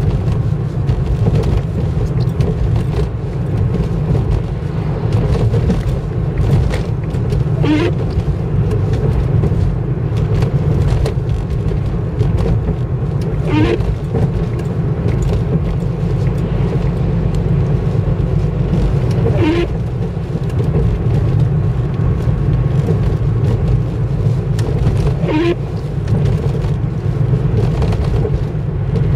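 Car interior road and engine noise at steady driving speed, with the windscreen wiper sweeping four times at even intervals of about six seconds, each sweep a short squeak across the wet glass.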